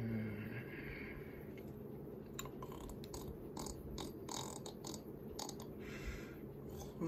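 A person imitating snoring: a short falling voiced exhale right at the start, then a crackly, rattling inhale over the second half that leads into the next falling exhale.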